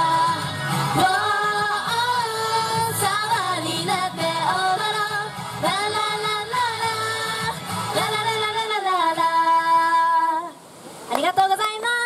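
Two female singers singing a pop song live into microphones over a backing track. The song ends on one long held note about ten seconds in, and the music cuts off. Brief voices follow near the end.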